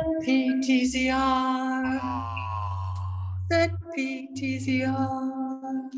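Wordless improvised vocalizing: a voice holds long steady notes, slides down in pitch, and breaks off into short breathy sounds, with a low hum coming and going underneath.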